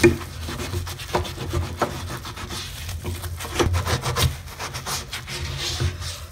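Scotch-Brite sponge scrubbing a wet, foamy bathtub drain stopper: a rubbing, rasping scrub in quick, irregular back-and-forth strokes, with soft low bumps from the hand and sponge.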